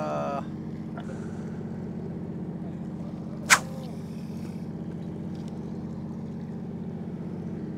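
A fishing boat's engine running with a steady low hum, and one sharp click about three and a half seconds in.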